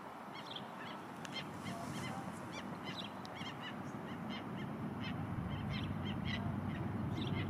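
Osprey calling at the nest: a run of short, high, whistled chirps in quick clusters, over a steady low background rumble.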